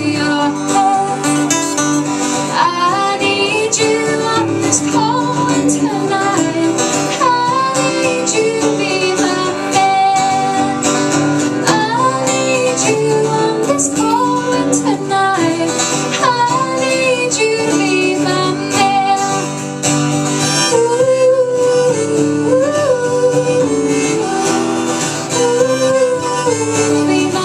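Live country music: an acoustic guitar strumming chords under a melodic lead line that slides up into its notes, an instrumental passage with no lyrics.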